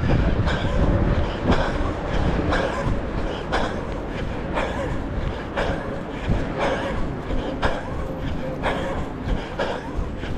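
A runner's footsteps thudding at a steady jogging rhythm, about two a second, under heavy wind buffeting the microphone.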